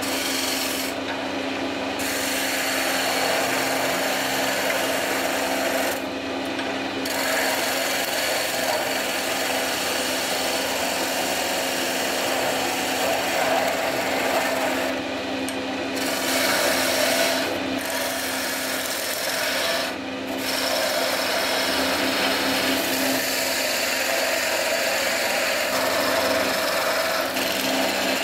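A small wood lathe runs with a steady hum while a hand-held flat turning chisel cuts a spinning wooden blank, giving a continuous scraping hiss as shavings come off. The hiss breaks off briefly several times where the tool leaves the wood.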